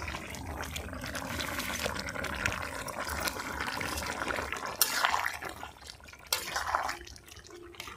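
Curry of cauliflower, potato and fish bubbling in a pan of simmering liquid, with two louder surges about five and six and a half seconds in.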